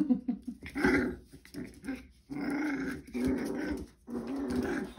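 Goldendoodle puppies play-fighting and growling, a run of short growls that grow longer over the second half.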